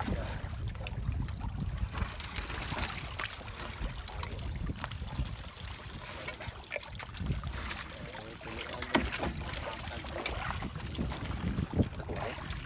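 Wind buffeting the microphone over the sea, with water trickling and dripping from a wire-mesh fish trap as it is hauled aboard a small boat, and scattered knocks and rattles from handling the trap.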